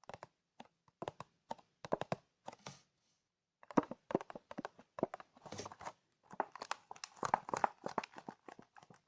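ASMR tapping: rapid, irregular taps and clicks in quick clusters, with a short pause about three seconds in.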